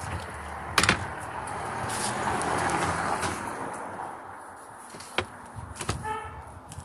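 Handling noises from a Citroen C4 Grand Picasso's hinged boot floor panel and folding third-row seat: a sharp clunk about a second in, then a rushing handling noise. A further click and a short squeak come near the end.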